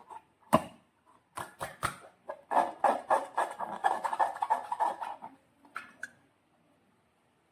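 Sticky slime being squished and worked by hand, a run of irregular wet crackles and pops. A few separate clicks come first, and the crackling stops a little after five seconds in.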